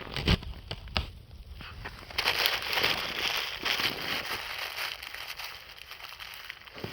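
Campfire crackling, with a few sharp pops in the first second and a denser spell of crackle about two seconds in.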